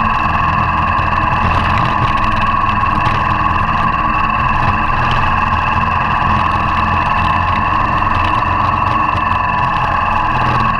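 Motorcycle engine running steadily under way on a gravel road, picked up by a camera mounted low on the bike beside the front wheel.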